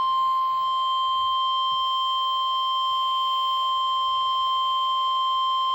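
Emergency alert attention tone: a single steady, high-pitched sine tone. It is the alarm that sounds before a severe thunderstorm warning is read out.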